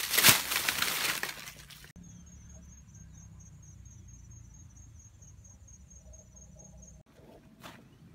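Dry leaves and bamboo litter crunching and rustling underfoot as someone walks through undergrowth, loud for about two seconds. Then it cuts off sharply to quiet surroundings where an insect trills in a high, even pulse.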